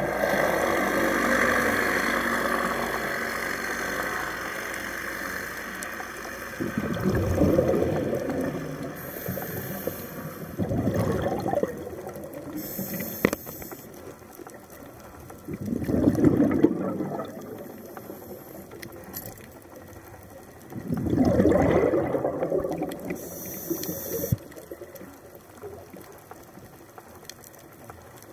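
A scuba diver's breathing heard underwater: exhaled bubbles rumble out of the regulator in four surges about four to five seconds apart, over a steady watery hiss.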